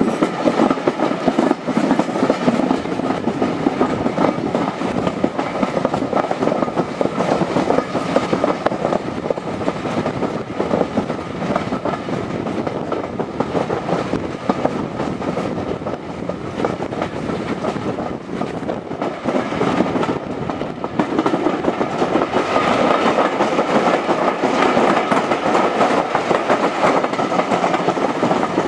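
Heritage railway carriage running along the track, heard from inside by an open window: a steady rumble and rattle with the clickety-clack of wheels over rail joints. It gets louder for the last several seconds.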